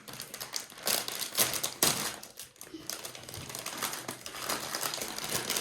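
A small wrapped toy being torn out of its wrapper: rapid, irregular crinkling and crackling of the wrapping, with a couple of sharper crackles about one and a half and two seconds in.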